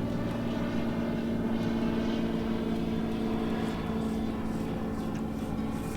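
A small boat motor running at a steady pitch, with no change in speed.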